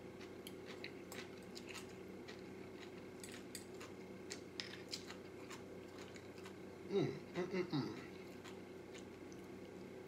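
Close-up eating sounds: a fork clicking and scraping against a plate and a small sauce cup, with chewing of fried chicken and shrimp. A short vocal sound comes about seven seconds in, over a steady low hum.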